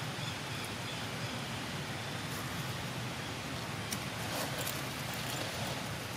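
Steady outdoor background noise: an even hiss over a low rumble, with a few faint clicks about two and four seconds in.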